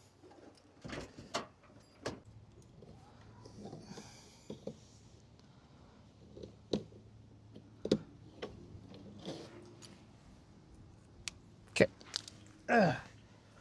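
Scattered knocks and clicks of car bumper parts being handled and lined up against each other, several sharp taps close together near the end.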